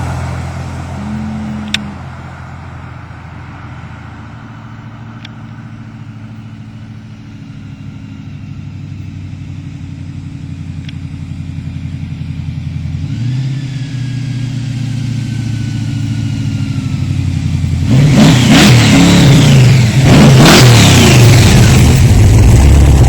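Pro Street 1974 Camaro's engine approaching from down the road, its steady note growing louder. About 18 seconds in it is revved hard and comes through very loud, running loud close by to the end.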